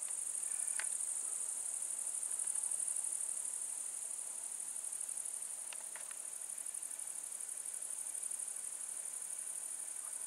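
Crickets trilling in a steady, high-pitched, unbroken chorus, with a couple of faint clicks about a second in and around six seconds.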